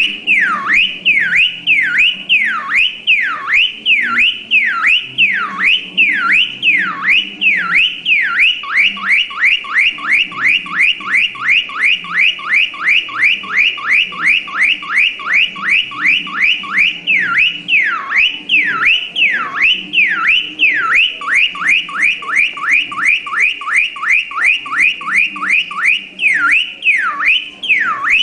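Electronic car alarm siren cycling through its tones. It gives slow up-and-down whoops about one and a half a second, then switches to a fast warble of about four or five sweeps a second, back to slow whoops about two-thirds of the way in, then fast again.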